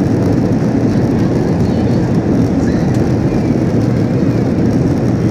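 Airliner cabin noise as the plane rolls along the runway after landing: a loud, steady low drone of engines and wheels heard from inside the cabin.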